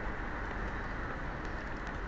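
Heavy rain pouring down in a thunderstorm: a steady, even hiss of rainfall.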